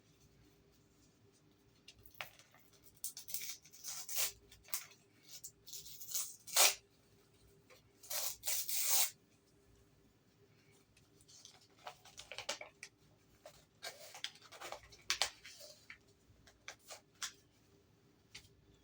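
Paper and packaging being handled and opened by hand: irregular bursts of rustling and crinkling, the loudest a sharp rip about six and a half seconds in and two longer rustles around eight to nine seconds.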